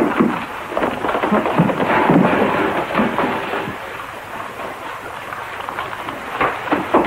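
Steady heavy rain with low rumbles, louder in the first few seconds, with a couple of sharp knocks near the end.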